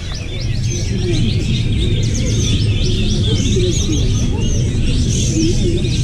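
Many contest songbirds singing at once: a dense, continuous chorus of rapid high chirps, trills and whistles, over a steady low background rumble.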